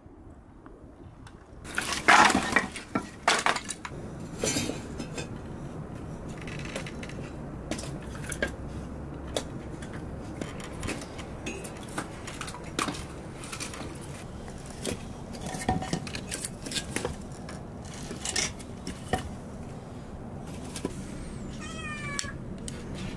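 Split firewood knocking and clattering as logs are set into a hearth, loudest about two to three seconds in, with scattered knocks after that. A cat meows near the end.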